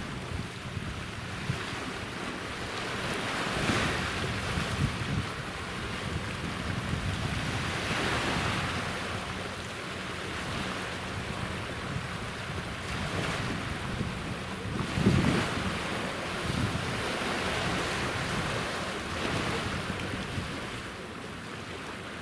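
Sea waves washing ashore, the surf swelling every few seconds, with wind buffeting the microphone.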